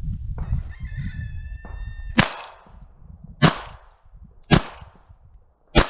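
Four shots from a Beretta U22 Neos .22 LR pistol firing CCI subsonic rounds, about a second apart, with the first about two seconds in. Just before the shots a rooster crows.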